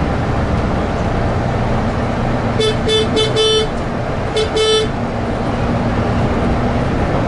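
A Volvo low-floor bus's horn giving a rapid string of short, high toots, four in quick succession and then two more about a second later, over the steady drone of the bus's engine and road noise inside the cab.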